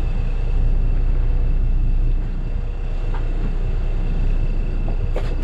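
Steady low rumble of a boat's engine running, with a faint constant whine above it. A brief hiss comes near the end.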